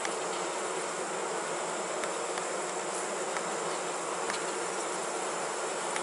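Honey bee colony in an opened hive box, a steady roar of many bees heard from just above the frames. A strong, busy colony.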